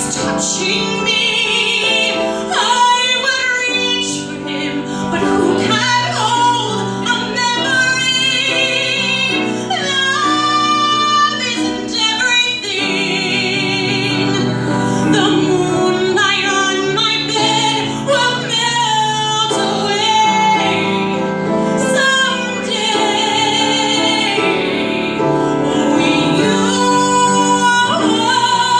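A woman singing a musical-theatre song with a wide vibrato on her held notes, accompanied by a grand piano.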